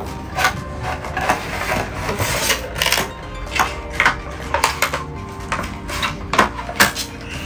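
Clear plastic blister-pack tray crinkling and crackling as hands press and handle it, in irregular sharp snaps, over faint background music.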